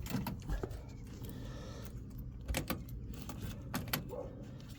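A few faint, sharp clicks and knocks scattered over a quiet background hiss.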